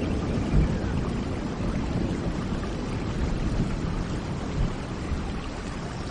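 Steady rain with a deep, low rumble underneath.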